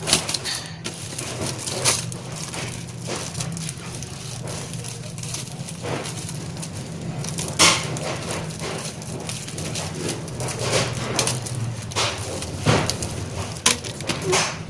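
Plastic packaging crinkling and clicking as it is handled and opened, in irregular sharp crackles, over a steady low hum.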